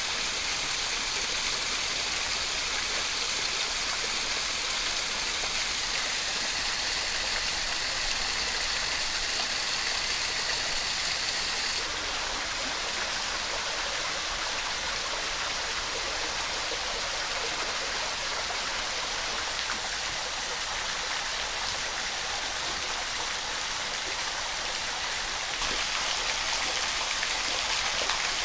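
Thin waterfalls spilling off rock ledges and dripping from an overhang, splashing into shallow pools as a steady water noise. It changes slightly about twelve seconds in and again near the end.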